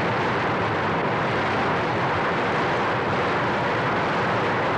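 Floodwater rushing in a swollen, muddy river: a steady, loud rush of noise that does not let up.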